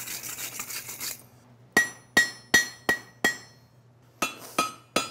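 Hand hammer striking hot steel on an anvil. After about a second of rough hiss come five ringing blows at a steady pace, then a short pause and three more blows with a lower ring.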